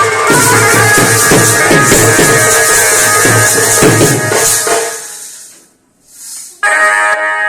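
Wedding band-baaja music played loudly: a fast, steady drum beat under a melody line. It fades out about five seconds in, then the melody starts again abruptly near the end without the drums.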